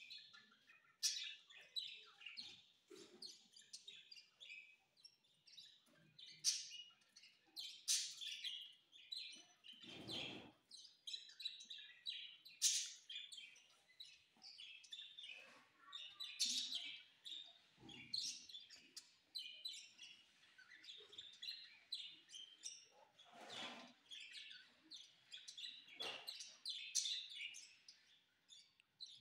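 A flock of budgerigars chattering and chirping without a break, with a few louder chirps scattered through. Several short, low rustling thumps come at intervals.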